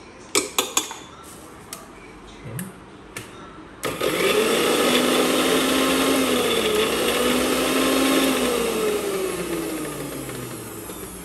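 A spoon clinks against a small steel mixer-grinder jar, then about four seconds in the electric mixer grinder starts and runs, grinding ginger and garlic, its pitch dipping briefly midway. Near the end the motor is switched off and winds down with a falling whine.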